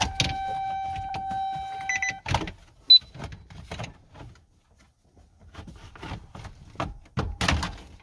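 A steady electronic warning tone from the truck's dash sounds until about two seconds in, then stops. After it come plastic clicks and snaps as the trim bezel around a GMT-800 truck's gauge cluster is pulled forward, with one sharp click about three seconds in and a cluster of louder snaps near the end.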